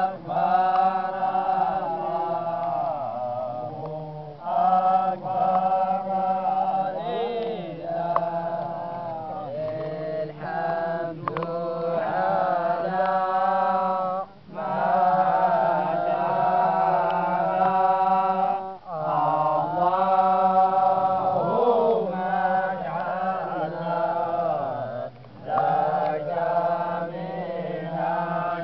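A group of men's voices chanting together in unison, long held phrases on a steady pitch, with brief pauses for breath between phrases.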